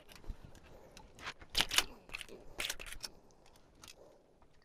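A few light knocks and clicks from gear being handled on a small boat, the loudest about one and a half seconds in and again near three seconds.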